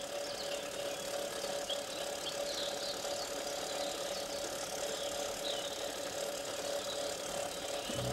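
Steady mechanical whirring with a constant mid-pitched hum, and a few faint short chirps above it.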